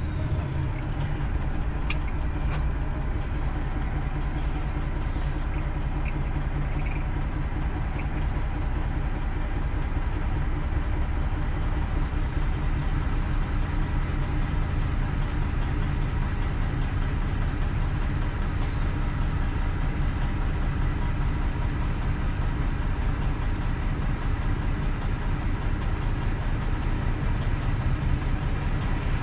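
Semi-truck's diesel engine running steadily at low revs, heard from inside the cab while the truck is driven slowly.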